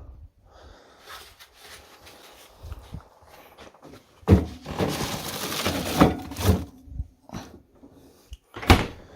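Kitchen handling noises: a faint rustle, then a louder clattering stretch about four seconds in with several knocks, and a sharp click near the end.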